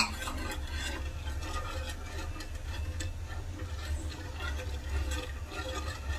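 Metal ladle stirring a thin soy-based glaze with sesame seeds in a non-stick frying pan: irregular light clicks and scrapes of metal against the pan, with one sharp knock at the start, over a steady low hum.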